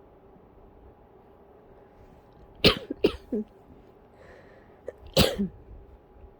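A person coughing into a pillow, trying to keep quiet: two quick coughs a little under three seconds in, then one more a little after five seconds.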